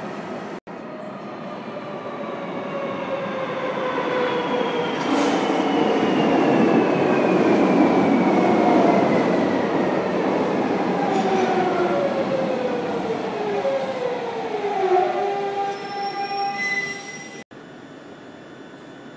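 Madrid Metro Serie 3400 electric train pulling into the platform and braking. Its motors whine in several tones that fall steadily in pitch as it slows, over loud wheel rumble, which swells as the cars pass and then eases. A few steady tones remain as it draws to a stop, and the sound drops suddenly near the end.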